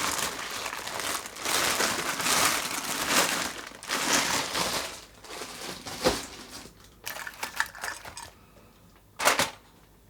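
Candy wrappers crinkling and rustling as they are handled and opened, dense for the first half, with a sharp click about six seconds in, scattered crackles after, and one short rustle near the end.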